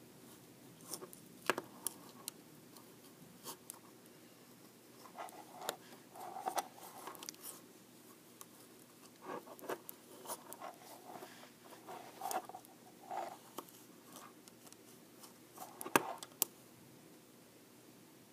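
Size 11 knitting needles clicking against each other and tapping on a desk as stitches are worked, with soft scraping of needle and yarn. The clicks come irregularly in small clusters, the sharpest near the end.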